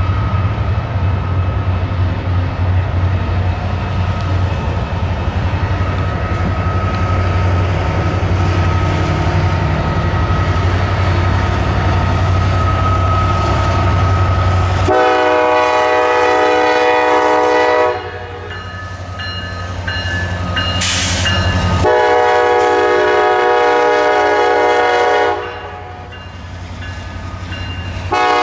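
Kansas City Southern SD70ACe freight locomotive rumbling past, then sounding its air horn: a long blast about halfway through, a second long blast, and a short one at the very end.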